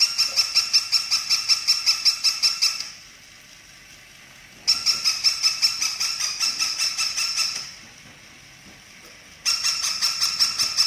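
Battery-operated plush puppy toy giving its electronic bark through a small built-in speaker: rapid, high-pitched yapping at about six yaps a second, in three bursts of about three seconds each with short pauses between; the third starts near the end.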